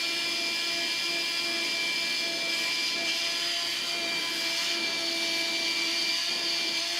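Shop vacuum running with a steady whine, its hose nozzle sucking up cast iron chips.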